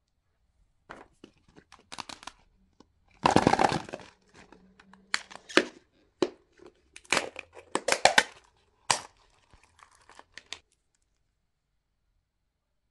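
Printed wrapper being torn and crinkled off a surprise egg in irregular rustling bursts. The loudest stretch comes about three seconds in, and the sound stops a couple of seconds before the end.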